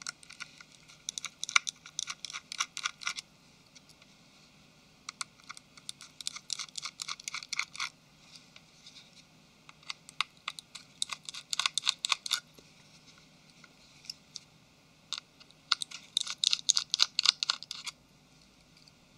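Small Phillips screwdriver unscrewing the tiny silver screws that hold a Nexus 5's midframe: rapid, sharp clicking ticks in four bursts of about three seconds each, with short pauses between.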